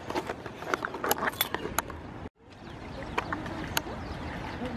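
Footsteps and handling noise, small clicks and knocks, as a handheld camera is carried over riverbank rocks. The sound cuts out abruptly about two seconds in and comes back as a steady outdoor hiss with an occasional click.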